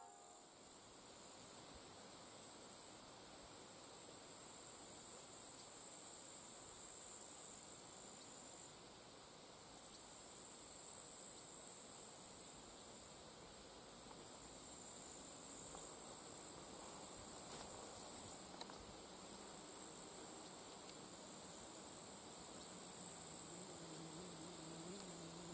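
Insects chirring steadily in tall summer grass, a high continuous buzz with stronger pulsing stretches in the middle. A faint low hum comes in near the end.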